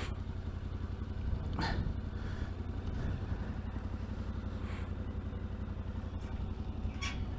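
Yamaha Ténéré 700's parallel-twin engine running steadily through its stock exhaust while riding along, with a few short rushes of noise over it.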